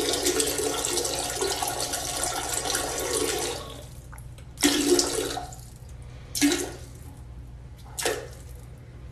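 Water rushing and splashing in a toilet bowl for about four seconds, then three short splashes.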